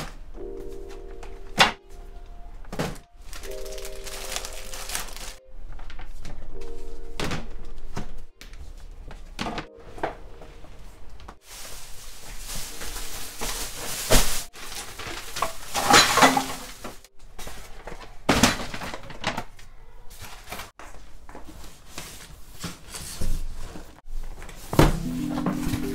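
Background music with sustained chords, over scattered knocks and thuds of household objects being handled and set down during room cleaning. A longer noisy stretch in the middle holds several louder knocks.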